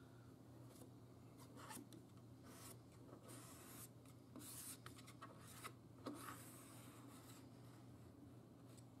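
Faint scraping and smearing of a small spreader blade wiping excess epoxy around a wing riser on a plastic car spoiler, in short irregular strokes, over a low steady hum.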